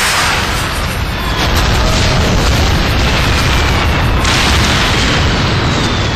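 Large explosions from missile or bomb strikes: a continuous heavy rumbling blast, with a fresh blast about four seconds in.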